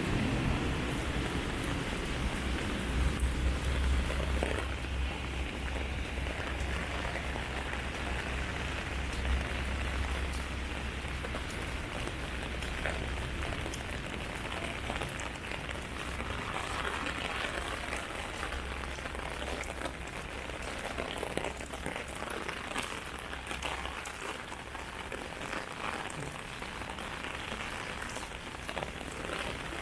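Heavy rain drumming on an umbrella and pattering on pavement, a dense steady patter of drops. A low rumble sits underneath for most of it and fades out near the end.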